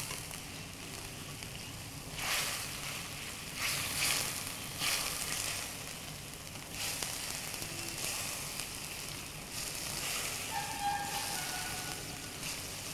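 Chicken pieces sizzling in a wok of chilli masala and water, a steady frying hiss with several short louder surges as the pieces are stirred and turned.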